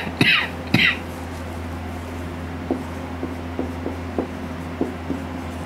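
Marker pen writing on a whiteboard: two short squeaky strokes in the first second, then a string of light ticks and taps as the writing goes on, over a steady low hum.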